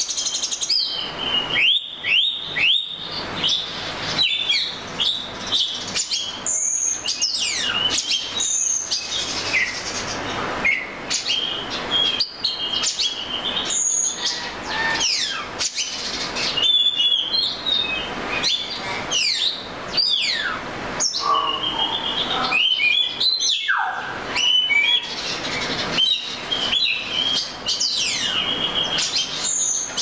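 Male oriental magpie robin singing a long, varied song of clear whistles, quick trills and falling sweeps, phrase after phrase with only brief gaps.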